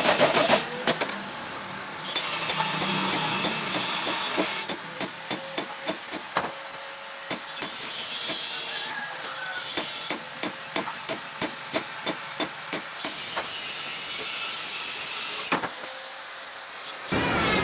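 Steady whirring hiss of a motor-driven workshop machine with a high whine that shifts pitch a few times, and a run of light, quick knocks from about five to twelve seconds in.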